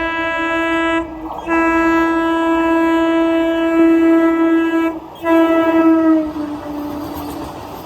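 Electric multiple unit (EMU) train horn sounding in three blasts: one already going at the start, a long one of about three and a half seconds, and a short one that slides down in pitch and fades as the train passes. The rush of the train running by follows near the end.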